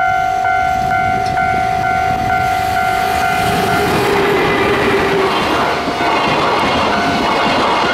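JR Freight EF210 electric locomotive passing close by at speed with a long train of container wagons. The wheels rumble and clatter over the rail joints. A steady warning tone pulses about twice a second and is drowned out about four seconds in, as the locomotive draws level.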